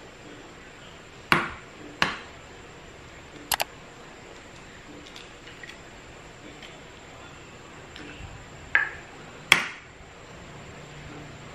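Eggs cracked one after another by knocking them on the rim of a ceramic bowl: sharp short taps, a pair early on, a quick double click, then another pair a few seconds later.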